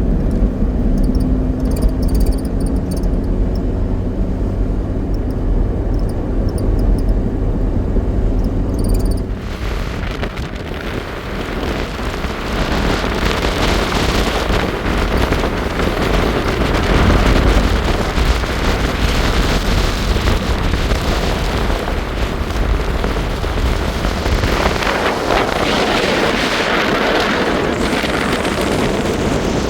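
A vehicle engine running with a steady low hum. About nine seconds in, the sound switches abruptly to loud, rough wind and road noise.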